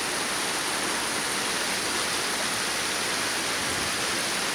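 Heavy rain falling in a steady downpour onto flooded pavement and parked cars: an even, unbroken hiss.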